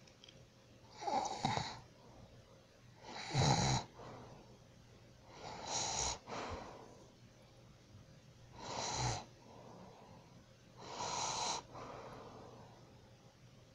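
A sleeping person snoring: five snoring breaths about every two and a half seconds, some with a low rattling rumble under a rasp.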